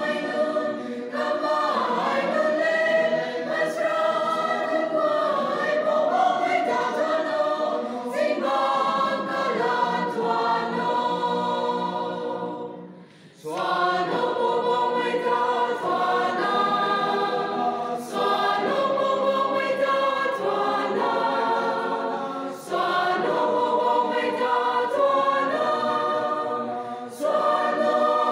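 Baptist church choir, mostly women's voices, singing a gospel song together. About halfway through the singing fades into a short pause, then the next phrase comes in suddenly.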